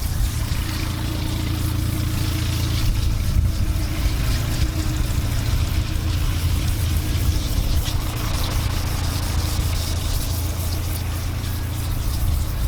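80-grit wet sandpaper scrubbing over a boat's oxidised fibreglass gel coat, a steady abrasive rasp over a constant low rumble.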